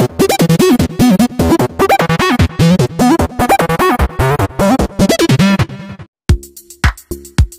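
Upbeat electronic intro music with a fast beat and synth melody, which breaks off about six seconds in and comes back as a sparser beat of deep kick-drum hits, about two a second.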